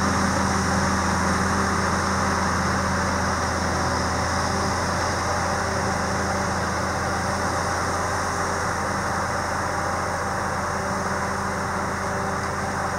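Railway snow-removal machine's engine running with a steady drone, slowly growing quieter as the machine moves away along the track.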